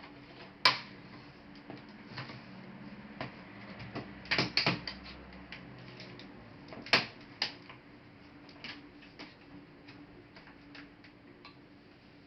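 Plastic laptop casing and parts being handled and tapped, giving scattered small clicks with a few sharper knocks, a quick cluster of them about four seconds in.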